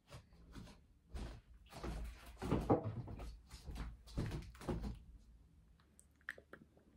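Footsteps across a bedroom floor and a closet door being opened, heard as a run of irregular knocks and thuds over a few seconds, then a few faint small clicks near the end.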